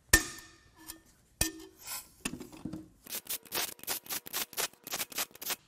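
Two sharp metal knocks, then a hand ratchet clicking quickly, about five clicks a second, as it runs bolts out of the Subaru FA20 engine block.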